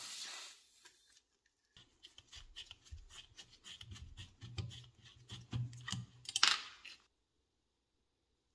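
A brief hiss of penetrating-oil spray, then a screwdriver scraping and clicking against a rusty screw in cast iron as the seized screw is worked loose, with a louder scrape about six seconds in.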